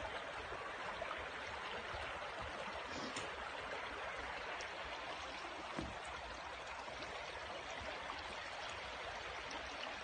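Shallow rocky woodland stream babbling steadily, with one faint tap about six seconds in.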